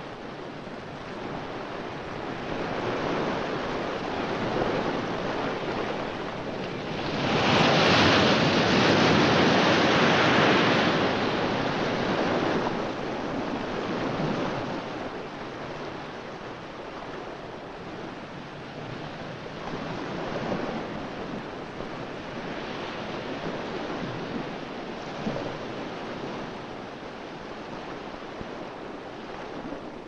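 Ocean surf: a steady rush of breaking waves that swells loudest from about seven to twelve seconds in, then eases back to a steady wash.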